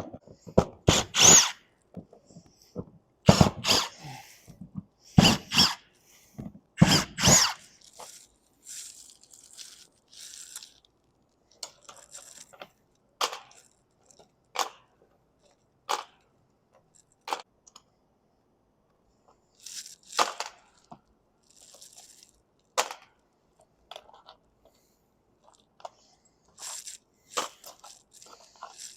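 Hand tools working on a camper roof: a run of sharp scrapes and knocks. The heavier strokes come in the first eight seconds, then lighter, scattered clicks and scrapes follow.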